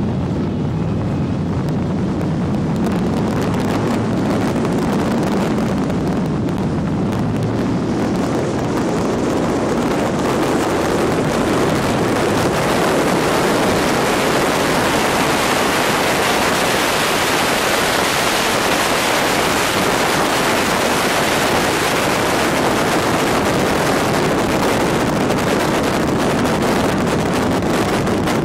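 Wind rushing over the microphone of a moving 1981 Corvette C3, with the low hum of its V8 engine and the road noise underneath. The wind grows louder about ten seconds in and then stays steady.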